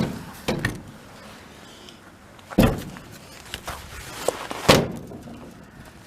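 Metal clunks and knocks of a VW split-window bus's rear cargo door and its newly fitted handle and latch mechanism being worked: four sharp knocks in about five seconds, the loudest near the end.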